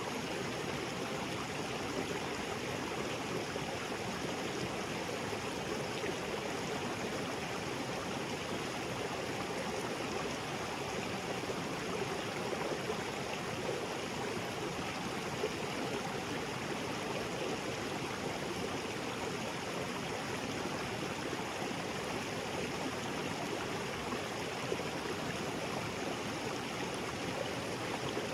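Small waterfall cascading into a rocky jungle creek: a steady, even rush of falling and flowing water.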